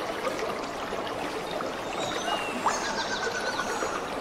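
Steady trickling and sloshing of shallow swamp water stirred up by wading, with a few faint high bird chirps about halfway through.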